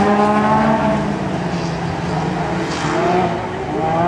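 Several racing cars' engines running together on a dirt track. The engine note sinks a little about a second in and rises again near the end as they accelerate.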